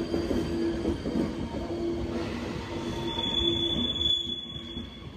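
ÖBB Nightjet passenger coaches rolling slowly out on departure, their wheels squealing on the rails in a tone that comes and goes over the rumble, with a thinner high squeal joining about three seconds in. The sound fades as the last coach passes.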